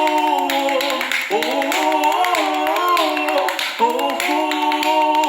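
Voices singing long held notes, sliding a little in pitch and breaking about a second in and again near four seconds. Quick percussive taps run underneath the whole time.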